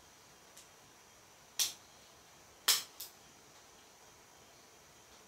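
A few short, sharp clicks in a quiet room: a faint one, then two loud ones about a second apart, the second followed at once by a softer one.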